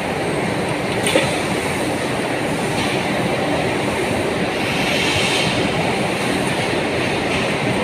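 CNC bending machine running: a steady mechanical noise with a couple of short clicks, about a second in and near three seconds, and a brief hiss about five seconds in.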